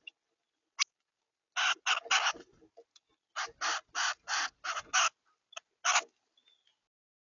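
Harsh, raspy bird calls: a quick series of three, then five more, then a single last one, each about a fifth of a second long. A short sharp click comes just before them.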